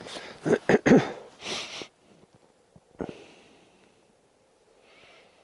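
A person sniffing and snorting hard a few times in the first two seconds, then a single click about three seconds in.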